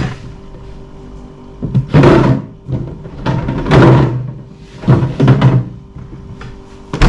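A few loud kitchen thunks and clatters, about two seconds, four seconds and five seconds in, over faint background music.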